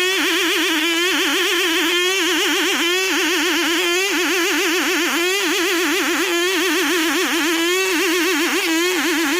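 Background music: a high, fast-wavering melodic line that repeats in short phrases about a second long.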